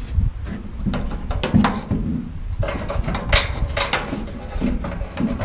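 Irregular metallic clicks and clinks of J-hook mounting hardware being handled and fitted against an aluminum diamond-plate truck toolbox and bed rail, with a couple of sharper clinks a little past the middle.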